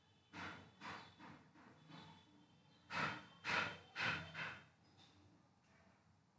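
A person breathing hard and gasping close to the microphone: a string of short breathy gasps, weaker at first, then four louder ones in quick succession around the middle.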